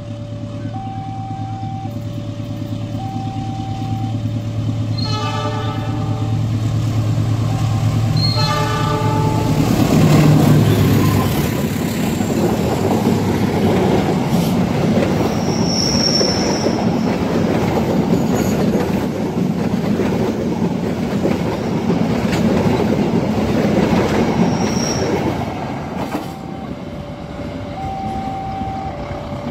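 Passenger train approaching and passing: a low engine rumble, two horn blasts of about a second each around five and eight seconds in, then the coaches clattering past on the rails with two brief wheel squeals. Under it all, a two-tone warning alarm alternates about once a second.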